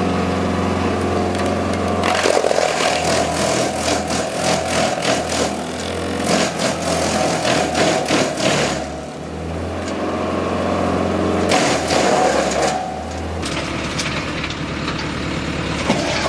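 Skorpion 250 SDT/G disc wood chipper running on its four-cylinder Yanmar diesel, with dense cracking and splintering as branches are fed in and chipped, in two spells of several seconds and a couple of seconds.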